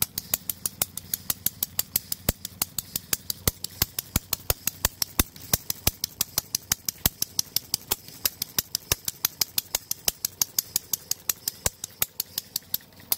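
Small antique gas engine running, a fast, even train of sharp clicks about six to seven a second. Its carburetor is nothing but a check valve that also serves as the intake valve, and its carburetion is very iffy.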